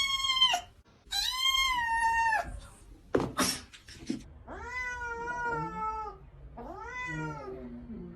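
A cat meowing in long, drawn-out calls, four of them, with a brief clattering noise about three seconds in. The last two calls are lower and quieter.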